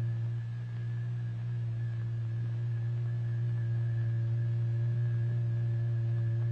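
Steady low electronic sine tone, a hum near 120 Hz with faint higher overtones, holding one pitch: the oscillator tone that excites the vibrating membrane on which the particles heap up.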